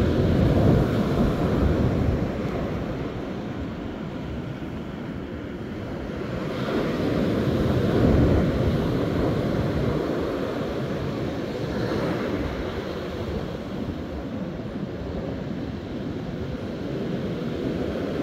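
Wind buffeting the microphone: a low rumble that swells and eases in slow gusts, strongest about a second in and again about eight seconds in.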